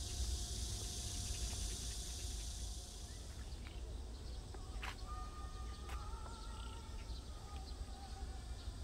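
Outdoor park ambience: a low rumble with a steady high insect-like hiss that stops about three seconds in. Two sharp clicks come around the middle, and a faint held whistle-like tone sounds in the second half.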